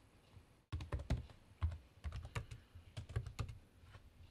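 Typing on a computer keyboard: an irregular run of quick key clicks, starting just under a second in, as a terminal command is entered.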